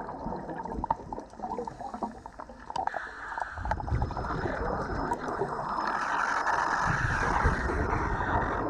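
Muffled underwater bubbling and gurgling, with scattered clicks in the first few seconds, then a steadier, louder rush of bubbles.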